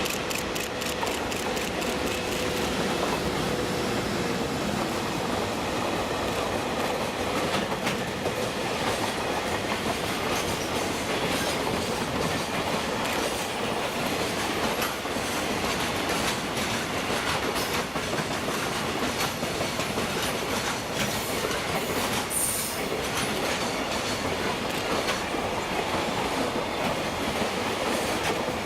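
Container freight train passing at speed, its long string of container flatcars running by with a steady rumble and wheels clacking over rail joints. There is a brief high squeal of wheels on rail about 22 seconds in.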